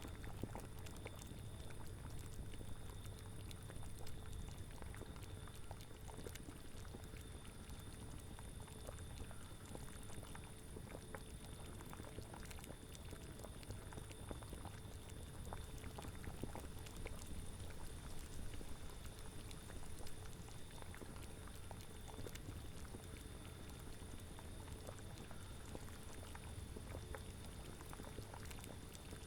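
Cauldron bubbling at a steady boil, with many small pops of bursting bubbles over a low steady rumble.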